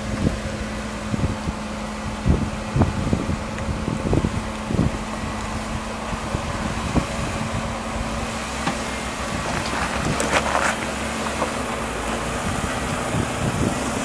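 Jeep Wrangler Rubicon crawling slowly over rock: the engine runs steadily at low revs while the tyres knock and crunch over rock and loose stones, with a brief scrape about two-thirds of the way through.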